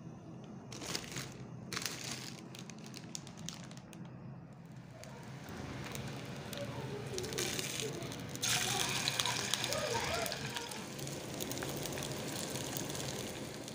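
Chicken nugget patties sizzling in hot oil in a frying pan, the sizzle building from about five seconds in and loudest from about eight seconds on. Scattered clicks and knocks come before the sizzle sets in.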